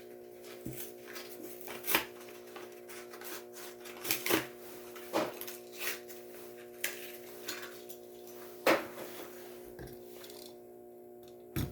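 Plastic blister and card packaging of a Matchbox die-cast car being pried and torn open by hand: irregular crackles, snaps and rustles, the loudest about two, four, five and nearly nine seconds in, over a steady low hum.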